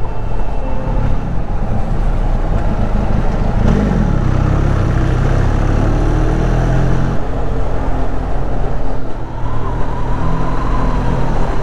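Motorcycle heard from the rider's seat while riding along a village road: a steady, loud engine and wind rumble. The engine note rises and falls about four seconds in.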